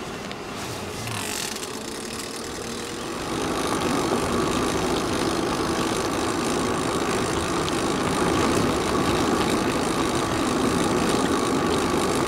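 Riding noise of an e-bike underway: a steady rolling rumble with a faint hum, getting louder about three seconds in and then holding level.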